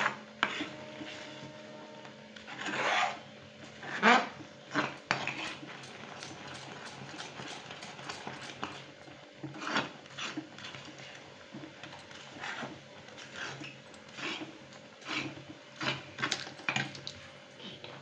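A spoon scraping and stirring thick, sticky tamarind-jaggery paste around a kadai in irregular strokes, keeping the thickening candy pulp from catching on the bottom. A faint steady hum runs underneath.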